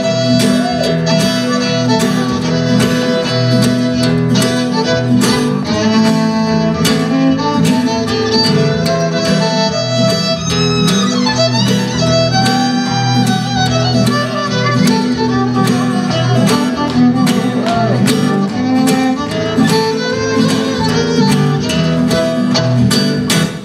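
Fiddle solo over strummed acoustic guitar: an instrumental break with no singing.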